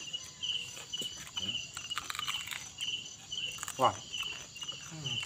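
Crickets chirping in a steady, even rhythm, about two chirps a second, with small crunching clicks of people chewing crispy roast pork skin. About four seconds in comes a short, falling vocal exclamation, the loudest sound here.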